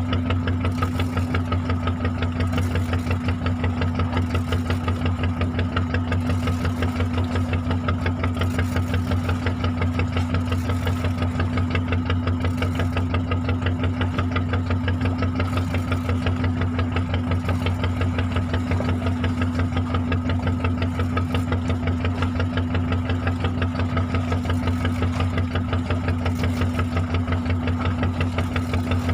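A fishing boat's engine running steadily with a fast, even pulsing throb that does not change.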